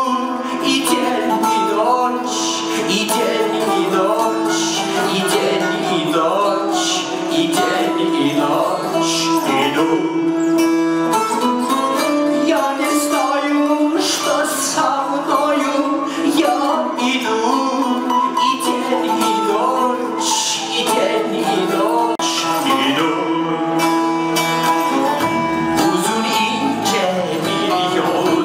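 A man singing live into a microphone over instrumental accompaniment that holds a steady drone note underneath.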